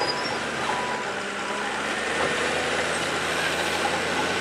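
Caterpillar D6R crawler bulldozer's diesel engine running steadily under load as the blade pushes a large stump root ball.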